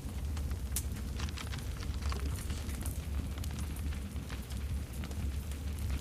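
Campfire burning: frequent, irregular sharp crackles and pops over a steady low rumble.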